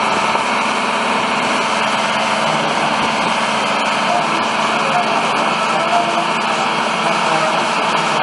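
Excavator's diesel engine running steadily under light load while it slowly pulls on a rope.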